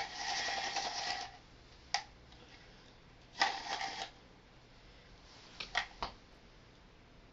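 Homemade reel-in grappling hook being used: its cardboard-tube and pencil reel rattles in two rasping bursts, one at the start and one about three and a half seconds in, with a sharp click around two seconds and a few light clicks near six seconds.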